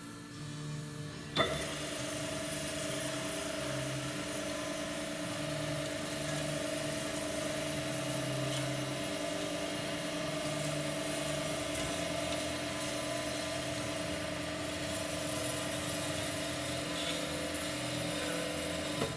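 Mep Shark 282 SXI EVO metal-cutting bandsaw starting with a click about a second and a half in, then running steadily with a constant hum and whine, and stopping near the end.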